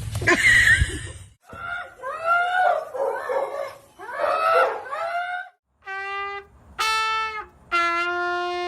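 A dog howling in several wavering calls that bend up and down in pitch, followed near the end by three steady held horn-like notes.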